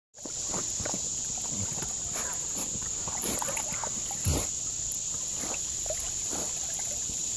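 Water lapping and splashing around a Giant Schnauzer as it swims and paddles on a leash, with a steady high-pitched drone behind. One louder thump about four seconds in.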